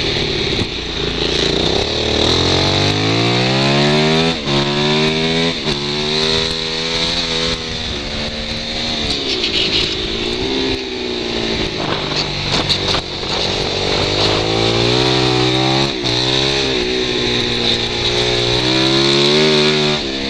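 Supermoto motorcycle engine heard from onboard, revving up through the gears with quick shifts a few seconds in, winding down under braking in the middle, then pulling up through the gears again. A steady wind rush over the camera microphone runs underneath.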